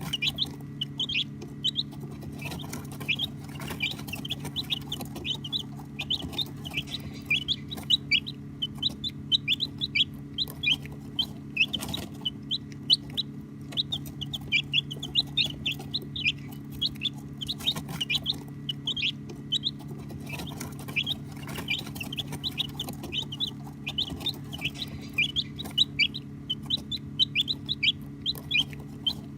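A group of baby chicks peeping continuously: many short, high peeps, each sliding down in pitch, overlapping several to the second. A steady low hum runs underneath.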